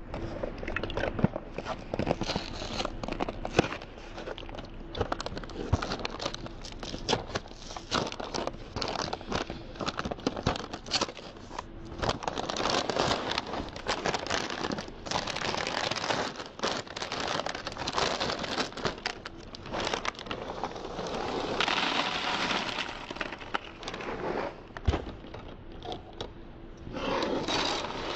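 Crinkling and tearing of a cereal box's plastic liner bag as it is pulled open and handled, with dry cereal rattling into a plastic tub later on.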